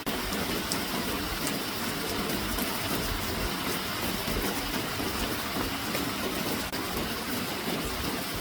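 Steady rushing noise of water, even and unbroken, cutting in abruptly at the start.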